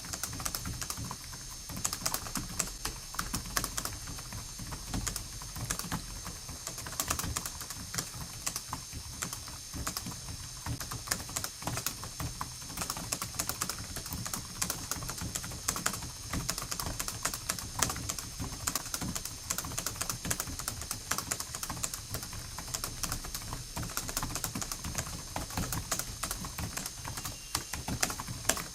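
Continuous fast typing on a computer keyboard: a dense, unbroken stream of key clicks.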